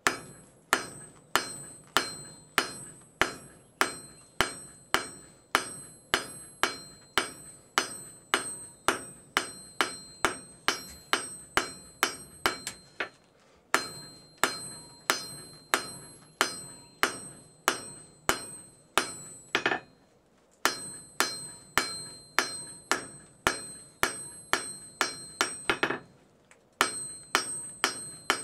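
Hand hammer forging a red-hot railroad spike into a tanto blade on an anvil: steady blows a little under two a second, each with a bright metallic ring. The hammering breaks off briefly three times.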